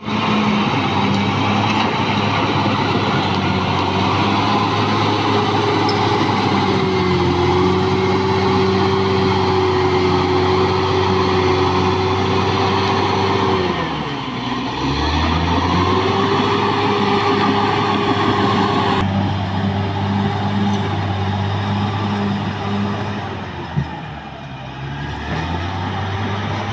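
Caterpillar D6R XL bulldozer's diesel engine working, with a steady whine above it. About halfway through, the engine pitch sags and then picks back up, as under load. It eases off again near the end, with a single sharp click.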